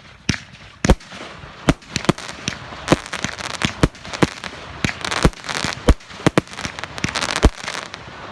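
Fireworks going off in a quick run of sharp bangs, more than a dozen, one or two a second, with crackling between them that grows thicker after the first couple of seconds.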